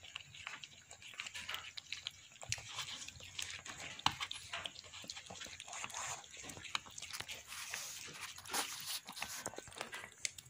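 Mother cat licking and mouthing her newborn kittens: irregular wet clicks and smacks.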